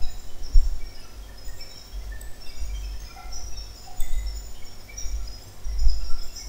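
Background noise: an uneven low rumble with scattered short, high chirps, faint enough to sound like distant birds.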